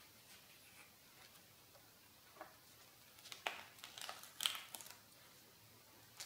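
A page of a spiral-bound sketchbook, heavy with ink and paint, turned by hand. A soft tick about two seconds in, then a short cluster of crisp paper crackles and rustles a little past halfway.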